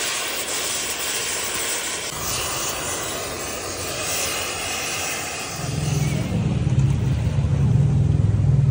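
Gas welding torch flame hissing steadily as it heats a cracked cast-iron engine block. About five and a half seconds in, a louder low rumble takes over.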